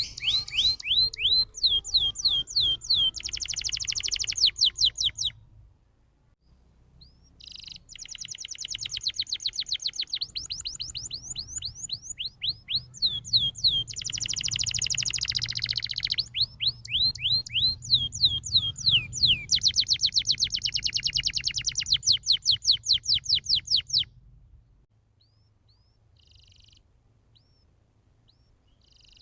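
Canary singing a long, loud song of rapid trills: runs of quick, repeated, falling high notes, broken by a short pause about six seconds in. The song stops about four-fifths of the way through, leaving only a few faint notes.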